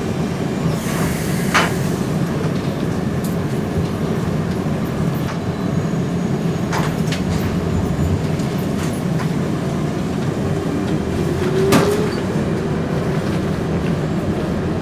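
Ride noise inside a UTDC/Hawker Siddeley CLRV streetcar running along the track: a steady low rumble, with a few sharp clicks and knocks from the wheels on the rails. A short rising whine comes about two-thirds of the way in.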